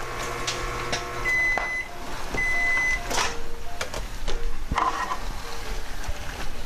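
Over-the-range microwave oven finishing its cycle: its running hum stops about a second in and it gives two long, steady beeps, the signal that the timed heating of a bowl of butter is done. A sharp clack follows about three seconds in as the door is opened, then a few light clinks as the bowl is taken out.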